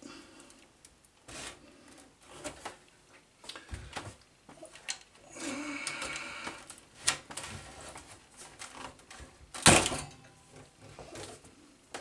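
Power-supply cable connectors being worked loose from a PC motherboard by hand: scattered plastic clicks and the rustle of bundled wires, a longer stretch of rustling around the middle, and one loud sharp click near the end as a plug comes free.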